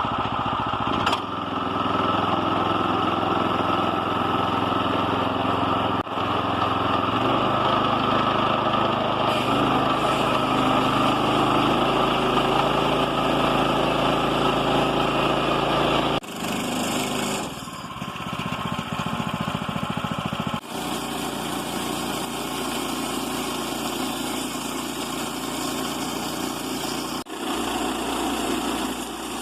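Small gasoline engine of a Woodland Mills portable bandsaw mill running steadily. Its pitch shifts about seven seconds in, and the sound drops out abruptly a few times.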